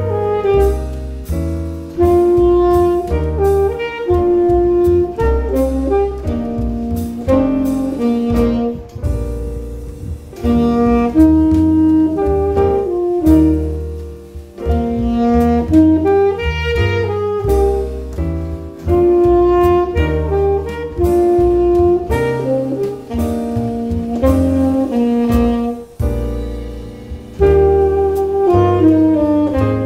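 Saxophone playing a melody of short and held notes over an accompaniment with a bass line and a steady drum beat.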